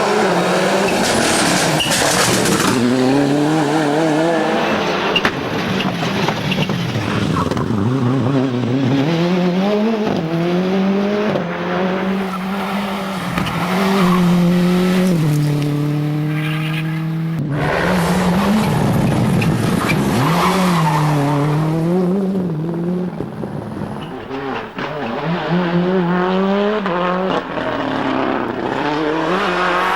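Toyota Corolla WRC rally car's turbocharged four-cylinder engine driven flat out, its pitch rising and falling again and again as it accelerates, shifts and brakes. Just past halfway the note holds steady for a few seconds, then breaks into a sudden loud burst.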